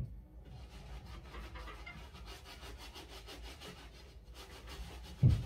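Soft bristle brush scrubbing the soapy knit upper of a sneaker in rapid, scratchy strokes. A dull thump near the end.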